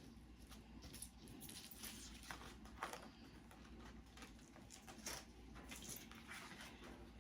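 Faint, irregular snips and rustling of paper being cut out, with a few sharper clicks about 3 and 5 seconds in.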